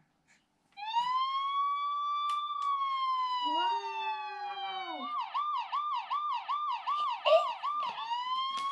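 Toy ambulance's electronic siren sounding after a button on its roof is pressed: a long wail rising and falling, then a fast yelp of about three rises a second, then the wail again.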